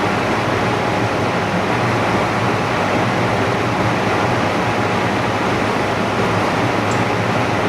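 Steady rushing hiss with a faint constant hum from machinery running in the repair room, unchanged throughout.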